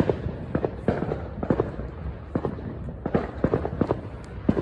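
Fireworks going off in quick, irregular succession: a scatter of sharp pops and bangs over a low rumble.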